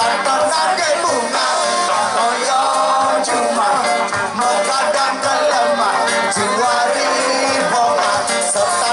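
A reggae band playing live with a singer, at a steady loud level. It is thin in the bass, as if caught from within the crowd on a phone microphone.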